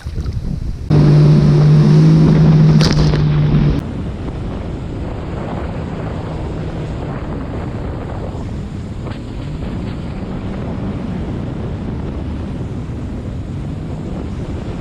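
Jet ski engine running on choppy water, with wind buffeting the microphone and water rushing. From about one to four seconds in, a louder steady engine hum starts and stops abruptly, then the rushing wind and water noise carries on.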